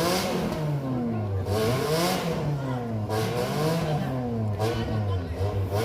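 Off-road 4x4 engine revving up and down repeatedly, the pitch rising and falling roughly once a second, as the driver works the throttle on the climb.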